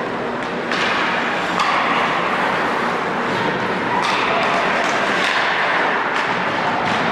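Ice hockey in live play: skate blades scraping the ice under a steady hiss of rink noise, broken by several sharp clacks of sticks and puck.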